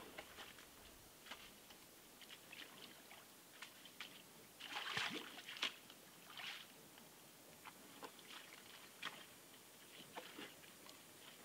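Brown bear's paws in wet mud and shallow water at a pond's edge: scattered soft squelches, small splashes and twig snaps. The loudest cluster comes about five seconds in.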